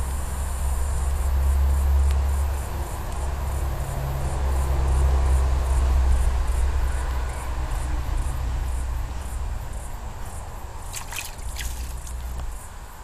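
Insects chirping in a steady high-pitched pulsing chorus over a loud low rumble. Two brief high chirps come about eleven seconds in.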